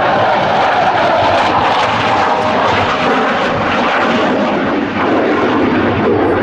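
Jet noise from a CF-18 Hornet's twin General Electric F404 turbofans as the fighter flies its display, a loud, steady rushing sound without breaks.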